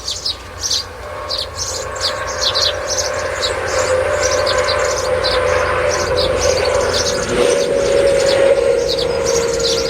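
Many birds chirping in quick, short, high notes, over a steady humming tone that swells in over the first few seconds and then holds.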